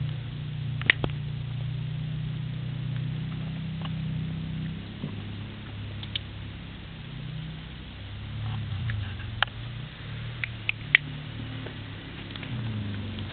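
Pet rabbit hopping around its pen: scattered light taps and clicks of its feet on the floor. The loudest comes about a second in, and several more follow close together later on, over a low background hum.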